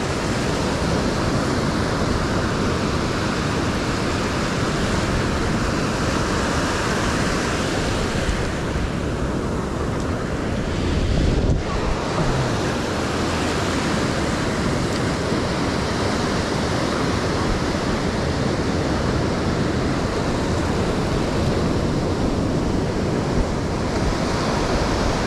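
Ocean surf breaking and washing up the sand at the water's edge, with wind buffeting the microphone. The noise swells briefly about eleven seconds in.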